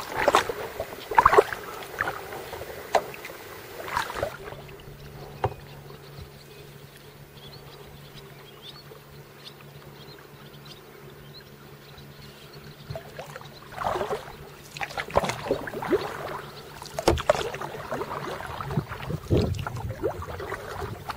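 Kayak paddle strokes dipping and splashing in calm water, at an uneven pace, with a quieter stretch in the middle where only a faint steady low hum is heard.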